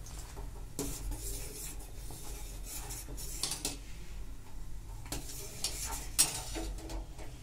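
A steel ladle stirs hot milk in a stainless steel pot, scraping and clinking against the metal, while lemon juice curdles the milk. The sharpest clink comes about six seconds in.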